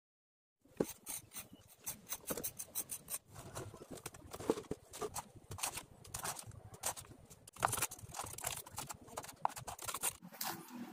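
Small mason's trowel scraping and tapping as damp cement-sand mortar is scooped and packed into a plastic basin mould around a bucket: a dense, irregular run of clicks and short scrapes, starting just under a second in.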